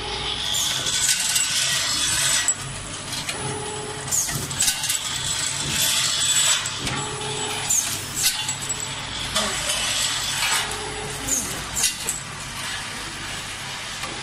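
CNC two-spindle thread tapping machine for drop-in anchor sleeves running through its work cycle over steady workshop noise. A short hum, a brief high chirp and clicks and knocks from the parts come back about every three and a half seconds.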